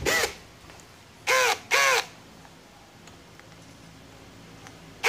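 Aneerpower BL-5120 cordless brushless hammer drill run in short trigger blips: one ends right at the start, then two quick ones about a second and a half in. Each time its motor whine rises and falls in pitch.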